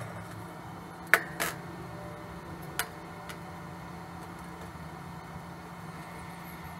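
A few light metallic clicks and clinks as sheet metal parts and small items are handled on a steel workbench, three sharp ones in the first three seconds, over a steady low hum.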